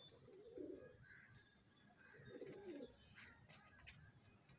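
Domestic pigeons cooing faintly: two low, wavering coos, one at the start and another about two seconds in.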